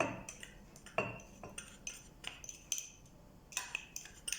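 A metal spoon clinking and tapping against a glass and a container, in a scattering of light, irregular knocks, as brown sauce mix is spooned into a glass of water.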